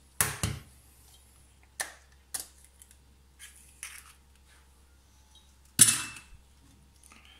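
An egg being tapped and cracked open over a bowl of flour: a few separate short clicks and knocks, with one sharper, louder knock about six seconds in.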